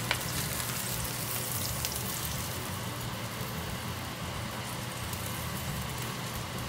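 Hot oil sizzling steadily in a frying pan after a milkfish has been fried in it, with a single light clink of a metal spatula right at the start.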